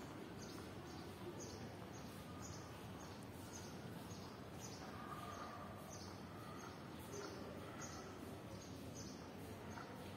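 Outdoor background noise with a short, high chirp repeating about twice a second.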